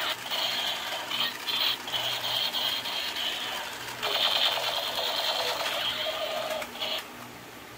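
Battery-operated light-and-sound toy gun firing: its small motor and gears rattle as the lit drum spins, with a high pulsing buzz over it, louder about four seconds in and cutting off near the end.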